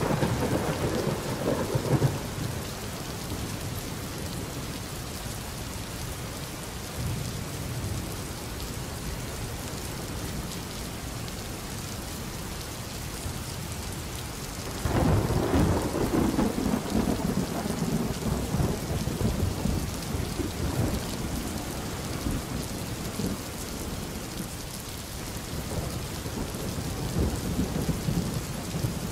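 Thunderstorm: steady rain with rolling thunder, one rumble at the start and a longer, louder one about halfway through.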